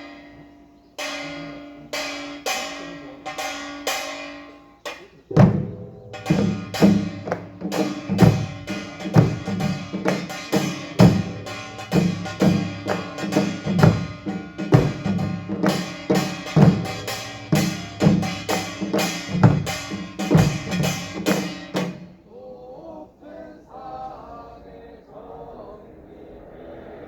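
Korean pungmul percussion ensemble playing: ringing metal gong strikes at first, then drums join about five seconds in with a fast, driving rhythm. The playing stops about three-quarters of the way through, leaving quieter, scattered background sound.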